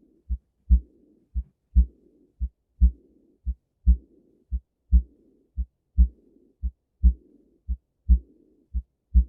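Recorded heart sounds: a steady lub-dub about once a second, with each second heart sound followed by a fainter hissing early diastolic murmur that fills the pause before the next beat. The murmur is the sign of aortic and pulmonary valve regurgitation.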